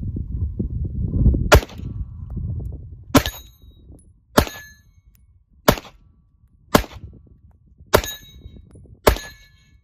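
A pistol fired seven times at a steady pace, about one shot every second and a quarter. All but the first shot are followed by a short metallic ring of struck steel. It runs cleanly on a standard-capacity magazine, with no jam in this string. A low rumble of wind on the microphone is heard before the first shot.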